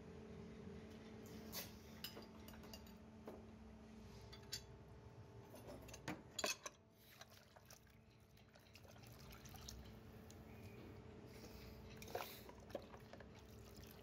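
Faint splashing and dripping of liquid as metal parts are handled in a bucket, with scattered sharp clinks. The loudest cluster comes about six seconds in. A low steady hum sits underneath.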